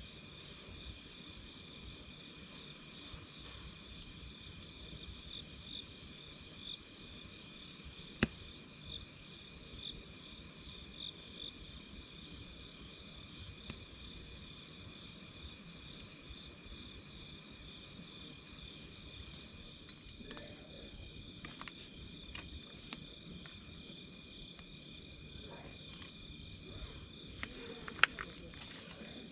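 Insects, cricket-like, trilling steadily at one high pitch over a campfire's soft crackling. Scattered crackles and pops from the burning wood, with two sharp pops: one about 8 s in and one near the end.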